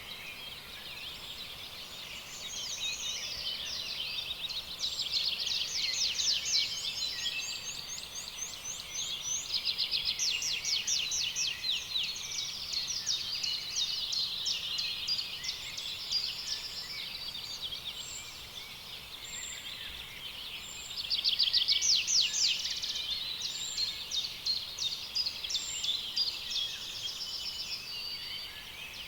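Small songbirds chirping and trilling in quick runs of notes, several at once, in a dense chorus that swells and fades. It is loudest about a fifth of the way in and again about three quarters through.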